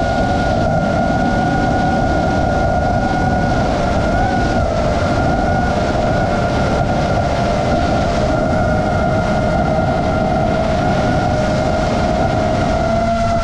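FPV quadcopter's motors and propellers running at a steady cruise: a steady high whine over a rushing of air, its pitch wavering only slightly.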